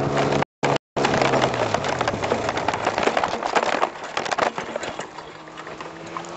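Powered parachute touching down hard without a flare: a dense rattling and crackling of knocks and bumps as the cart meets the ground, thinning out after about four seconds. Near the end a steady engine tone comes in. The audio drops out twice briefly about half a second in.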